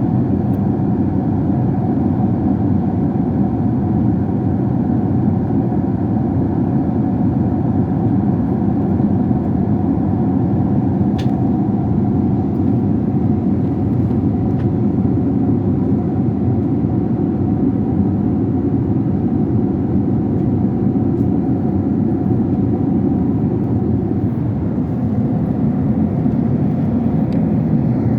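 Steady drone of an airliner cabin in flight: jet engine and airflow noise with a faint constant hum, plus a faint tick about eleven seconds in.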